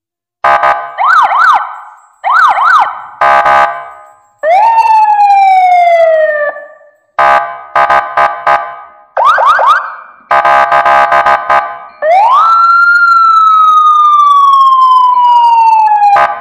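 Loud electronic toy police siren sounds in short bursts: quick up-and-down wails, buzzing blasts and falling whistle tones. It ends with one long tone that rises and then slowly falls for about four seconds.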